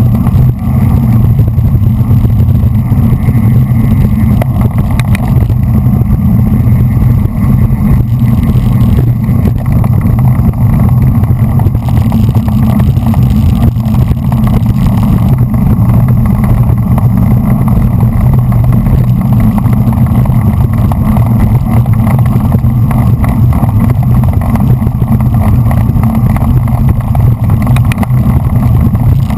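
Steady, loud wind rumble on a GoPro's microphone carried on a bicycle at race speed in a pack of road racers, with road noise under it.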